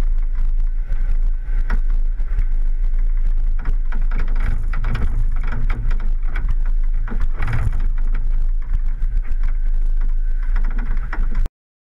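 Off-road vehicle driving on a muddy dirt road, heard from a camera mounted on its hood: a steady low rumble with scattered knocks and rattles over the bumps. The sound cuts off suddenly near the end.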